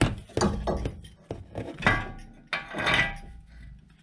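Steel band clamps and a driveshaft handled during a CV joint boot fitting: several knocks and clinks with metal scraping on metal, the longest scrape about three seconds in.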